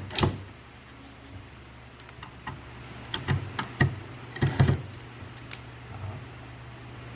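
Scattered light clicks and knocks of wooden drawer parts and screws being handled and set in place, over a steady low hum.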